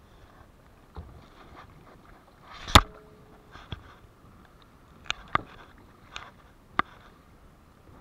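Kayak paddle strokes: the blade dipping and splashing in the water, with several sharp knocks from the paddle, the loudest about three seconds in.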